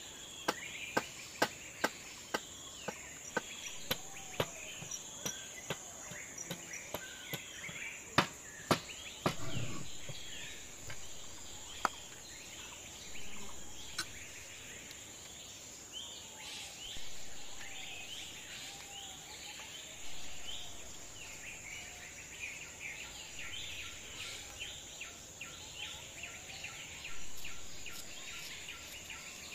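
Kitchen knife chopping tomatoes on a wooden cutting board: a quick run of sharp knocks over the first ten seconds or so, then only a few scattered taps. Under it runs a steady high insect drone with birds chirping.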